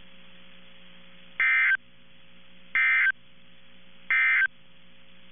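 NOAA Weather Radio Emergency Alert System end-of-message data: three short bursts of warbling two-tone digital data, each about a third of a second long and about a second and a third apart, over a steady radio hiss and hum. This is the SAME/EAS end-of-message code that closes the tornado watch broadcast.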